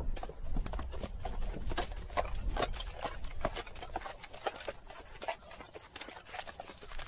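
A rapid, irregular series of sharp clicks and knocks over a low rumble, cutting off suddenly near the end.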